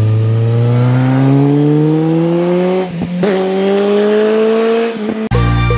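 Kawasaki Z900RS inline-four motorcycle engine accelerating, its pitch climbing steadily, with an upshift about three seconds in and another near the end. Music starts just before the end.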